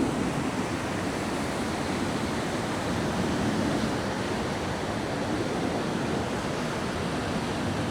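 Steady rushing of a river's waterfall cascades, an even wash of water noise without a break.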